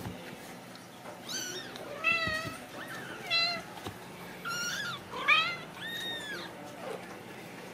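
Ragdoll kittens mewing: about six short, high-pitched mews that rise and fall, spread over several seconds.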